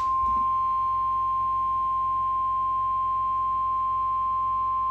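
NOAA Weather Radio warning alarm tone for an Emergency Alert System severe thunderstorm warning: a single steady, high-pitched tone held at one pitch.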